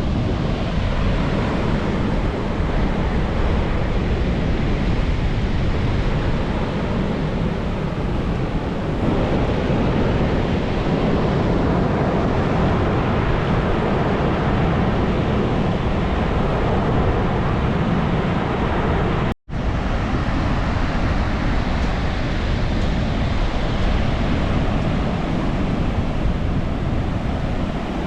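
Pacific Ocean surf washing in steadily, with wind buffeting the microphone. The sound cuts out completely for a split second about two-thirds of the way through.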